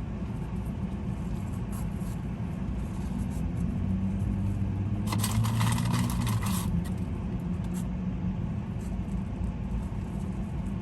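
A car engine idling steadily, heard from inside the cabin as a low hum. About five seconds in there is a brief noisy rustle lasting over a second.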